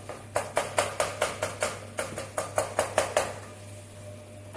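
Kitchen utensil clacking in a quick, even run of about fifteen sharp strikes, about five a second, for some three seconds, then stopping.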